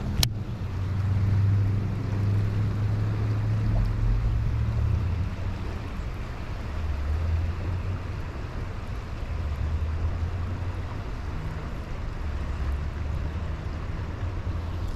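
Low, uneven rumble of wind buffeting the camera microphone, with one sharp click just after the start.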